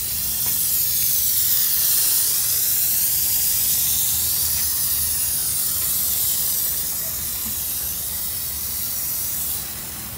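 Aerosol can of Plasti Dip spraying in a continuous hiss that wavers slightly in strength, dropping away briefly near the end.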